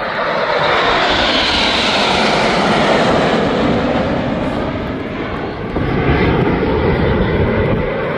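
Red Arrows BAE Hawk T1 jets' Adour turbofan engines, a loud rushing roar swelling to a peak about two to three seconds in, easing off, then swelling again about six seconds in as aircraft pass.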